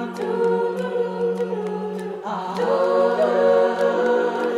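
Women's a cappella ensemble singing sustained chords without words, over a low held bass note, with a rising swell of voices about two seconds in. A steady beat of sharp clicks runs under the chords.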